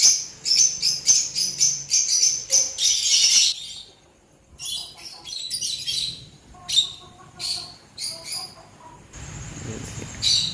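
Small caged parrots chirping: rapid, sharp, high chirps several a second, with a brief lull about four seconds in, then thinning out. Near the end a low steady noise comes in under a last chirp.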